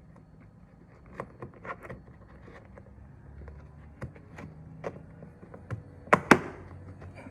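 Plastic clicks and knocks as a Tesla Model Y projection light housing is pushed into its opening in the door trim, ending in two sharp snaps close together about six seconds in as the light's clips seat.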